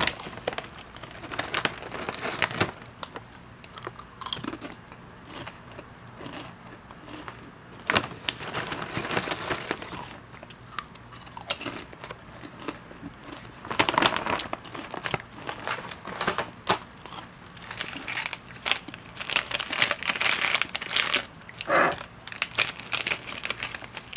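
Foil Lay's potato chip bag crinkling as a hand reaches in, mixed with crisp chips crunching as they are chewed, heard close up through a clip-on lavalier microphone. The crinkling comes in irregular spells, louder in the second half.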